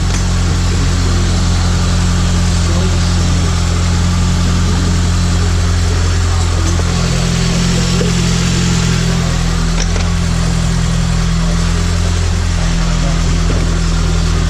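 Toyota Celica engine idling, its note shifting slightly a couple of times. It has just been restarted after sitting unused for months.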